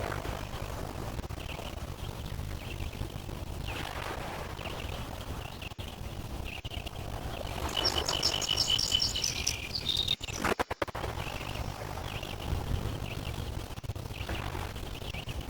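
Small lake waves lapping softly in swells every few seconds, with a low wind rumble on the microphone. Birds chirp throughout, and a brighter run of rapid repeated bird notes comes about eight seconds in.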